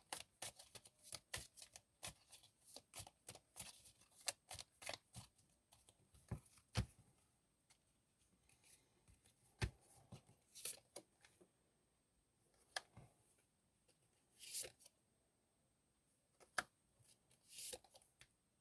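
Tarot cards being shuffled and laid out, faint: a quick run of soft card flicks and taps over the first several seconds, then scattered single taps and a few brief slides of cards.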